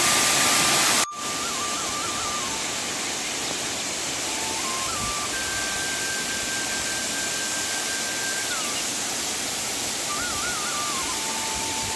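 Steady rush of a waterfall. About a second in it cuts abruptly to a somewhat quieter rush. A thin melody of long held, whistle-like notes with a few wavering turns runs over it.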